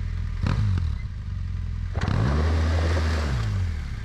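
Adventure motorcycle engine blipped once, then revved up about two seconds in and held for about a second while the rear tyre spins on loose dirt with a hiss of spraying grit, then the revs drop away. This is the rear-wheel spin of an elephant (pivot) turn.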